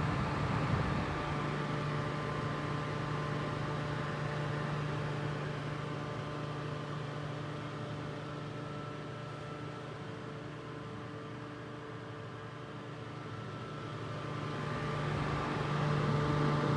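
Fan propeller spinning: a steady whirring hum with a low pitch, easing off somewhat in the middle and swelling again near the end.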